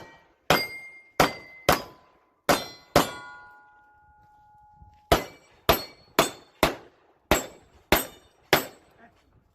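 A fast string of pistol shots from a Glock 22 in .40 S&W, each answered by the ringing clang of a hit steel plate, about a dozen in all. Around three seconds in there is a pause of about two seconds while one plate rings on, then the shots resume at about two a second.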